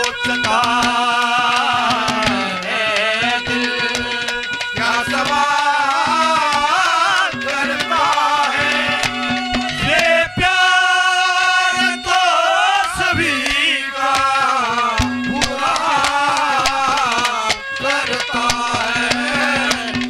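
Live Haryanvi folk music with no lyrics: a wavering melody over a held low note, with quick hand-drum strokes throughout.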